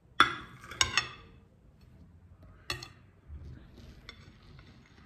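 Kitchen knife blade clinking against a ceramic plate while cutting through a firm gelatin: two sharp clinks with a short ring in the first second and a third a little before three seconds in, then faint scraping.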